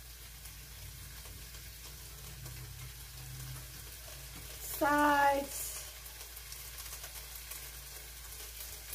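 Peppers sizzling steadily in a frying pan on the stove, a low continuous frying hiss.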